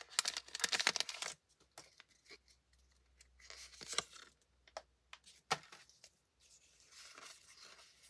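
Foil wrapper of a Pokémon booster pack crinkling as the stack of cards is slid out of it, followed by scattered soft clicks and rustles of the cards being handled and rearranged.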